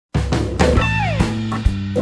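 Background music with guitar and drums that starts suddenly, with a note sliding down in pitch about a second in.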